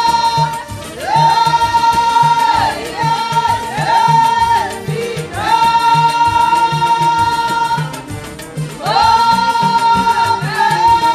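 Background music: a singer holds long high notes with sliding ornaments between them over a steady drum beat.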